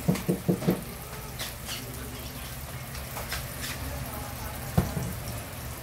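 Butter melting in a wok over a gas flame, sizzling with scattered small pops and crackles. Four quick low thuds sound right at the start, and one more about five seconds in.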